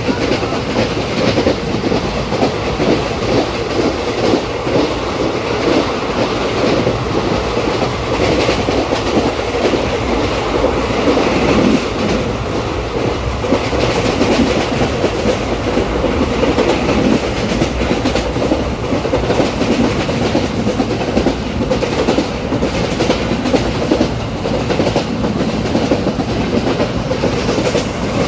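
Train running along the track: a steady rumble with the clickety-clack of wheels over the rails.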